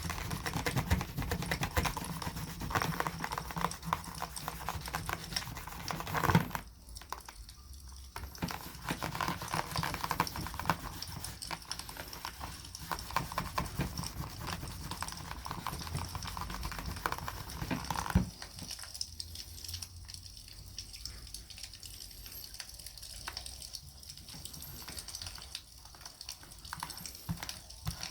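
Beeswax being rubbed into a leather knife sheath, with scrubbing and scratching over the crackle of a wood campfire. A sharp knock comes about six seconds in and another near eighteen seconds, after which the rubbing is quieter.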